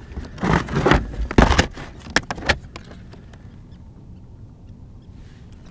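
Clattering of a clear plastic tackle box full of bucktail jigs being pulled from a storage well and opened, a quick run of clicks and knocks with the loudest about a second and a half in. Then only a faint steady background.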